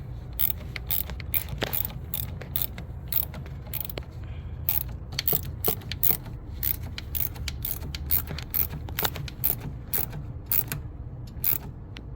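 Ratchet wrench clicking in repeated short strokes, about two to three clicks a second, over a low steady rumble.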